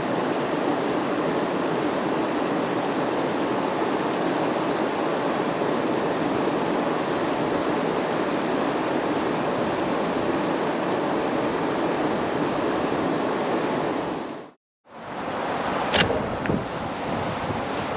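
Steady, even rushing noise, cut to silence for a moment about fifteen seconds in; it returns with a single sharp click about a second later.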